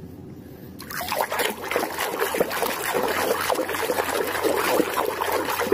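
Water splashing and sloshing in a plastic basin as a muddy plastic toy is scrubbed and swished by hand. It starts about a second in and goes on as a busy, irregular splashing.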